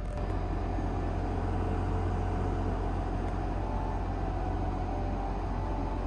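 Portable air conditioner running inside a small van, a steady low hum of compressor and fan with an even rush of air.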